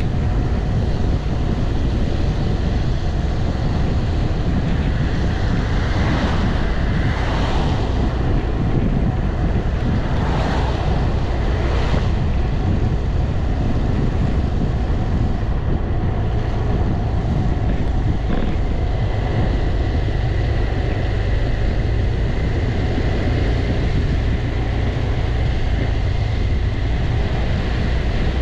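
Wind rushing over the microphone of a camera on a moving BMW C 400 X scooter's windscreen, with the scooter's single-cylinder engine running underneath. The sound swells briefly twice, about six and ten seconds in.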